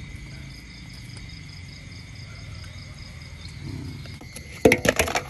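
Crickets trilling steadily at night, a continuous high tone. Near the end comes a short burst of sharp knocks and clatter, the loudest sound.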